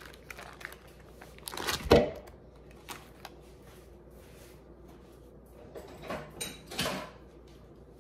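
Kitchen items being handled on a counter: a loud knock about two seconds in, then two lighter clunks near the end.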